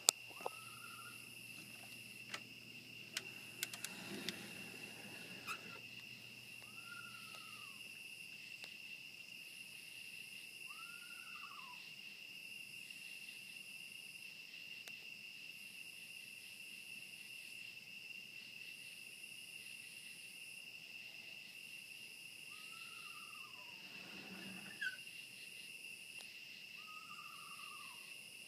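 A night animal's wailing call, about a second long, that jumps up and slides down in pitch, repeated five times at irregular gaps, over a steady chorus of crickets or other night insects. A few sharp clicks and thumps, the loudest sounds here, come in the first six seconds and again about 25 s in.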